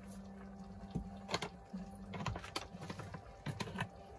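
Irregular clicks and knocks of a wooden spoon against a metal cooking pot as chicken is stirred, over a steady low hum.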